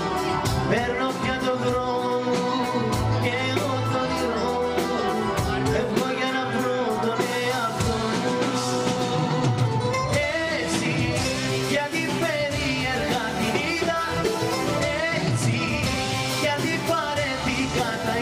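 Live band with drum kit and electric guitar playing a pop song at a steady level, with a male singer singing into a microphone.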